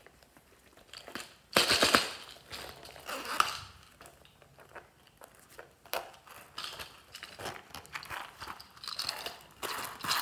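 Silicone zippered coin purses handled and squeezed close to the microphone: a loud rustling burst about a second and a half in, a sharp click about six seconds in, then scattered clicks and rustles.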